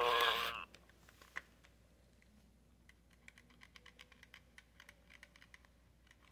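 The end of a 1999 Tiger Electronics Furby's electronic voice, cutting off about half a second in, then faint, irregular light clicks and taps as the toy is picked up and handled.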